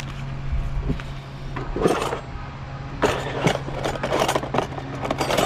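Metal cooking utensils (tongs, spatulas, spoons) clattering and scraping in a plastic drawer as a hand rummages through them, mostly in the second half. Under it runs a steady low hum from construction machinery.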